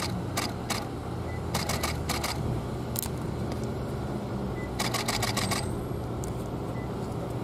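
Camera shutters clicking in short bursts, single clicks and quick strings, with a fast run of about eight clicks around five seconds in, over a steady low hum.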